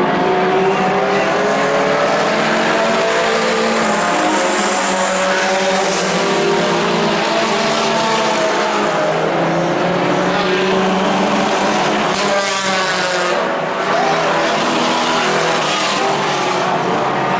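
A field of mini stock race cars running hard around a dirt oval, several engines heard at once, their pitch rising and falling as they power through the turns. About twelve seconds in, one car sweeps past closer, its pitch falling as it goes by.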